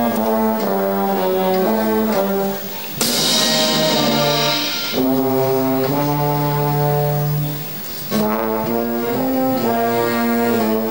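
Brass band playing a slow funeral march in held, stepwise notes. A loud percussion crash with a deep drum stroke comes about three seconds in and rings for two seconds.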